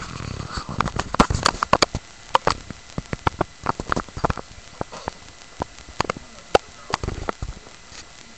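Quick, irregular clicks and knocks, some with low thumps, from two small dogs wrestling on a wooden floor and rug: claws and paws scrabbling and bodies bumping.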